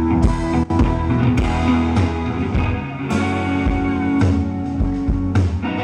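A band playing rock music with guitar and a drum or cymbal hit roughly once a second, in an instrumental stretch between sung lines.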